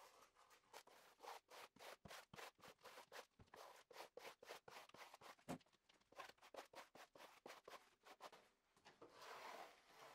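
Faint, repeated scraping of a flat steel smoothing trowel drawn over a waterproofing membrane on the floor, about three strokes a second, with one longer rub near the end. The strokes press the membrane into the tile adhesive beneath it.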